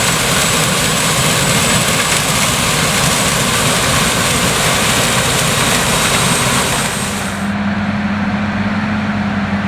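Claas Lexion 770 TerraTrac combine harvester running, its Mercedes-Benz OM 502 LA V8 diesel and threshing machinery making a loud, steady mechanical noise with a strong hiss. About three-quarters of the way through, the hiss cuts off suddenly and a steady low hum remains.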